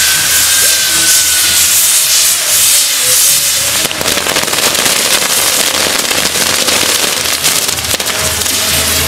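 Fireworks going off: a steady hiss with a slowly falling whistle, then from about four seconds in a dense, continuous crackling.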